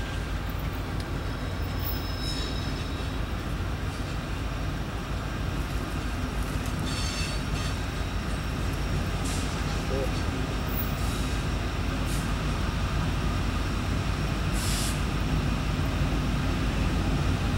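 Approaching Norfolk Southern loaded coal train, led by diesel-electric locomotives: a steady low rumble that slowly grows louder as the train nears. A few brief, faint high squeaks sound over it.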